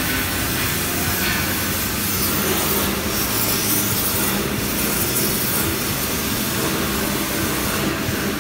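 Steady, loud shop machinery noise with a low hum running underneath.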